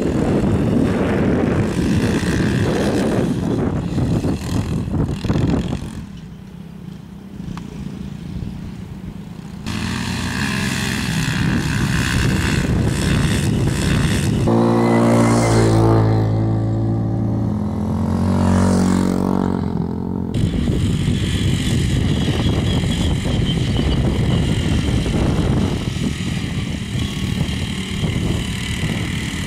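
Yamaha TT-R90 kids' dirt bikes with small four-stroke single-cylinder engines running laps. About halfway through, one bike comes close and its engine note rises and falls as it revs, then cuts off suddenly.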